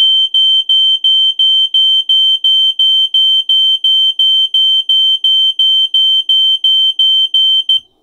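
AICO optical smoke alarm on a RadioLink base sounding its test alarm while its test button is held down. A shrill, high beep repeats about three times a second, then cuts off suddenly near the end.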